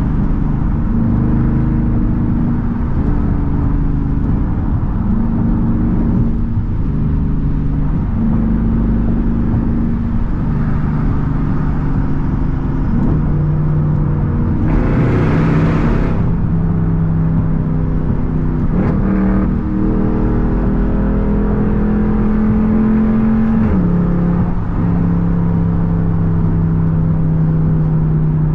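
Straight-piped Jeep Grand Cherokee SRT's HEMI V8 heard from inside the cabin while cruising on the freeway, its exhaust drone stepping up and down in pitch several times with shifts and throttle changes. A brief rush of broad noise comes about halfway through.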